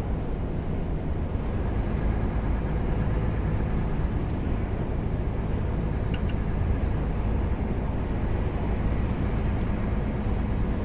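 Steady drone of a semi-truck's engine and road rumble heard inside the cab while driving at a constant speed.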